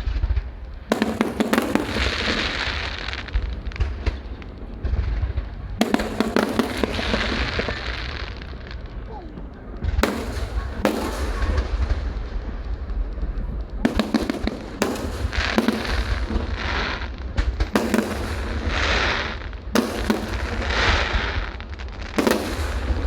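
Aerial fireworks shells bursting overhead: about ten sharp bangs, some in quick pairs, each followed by a second or two of crackling as the effects burn out.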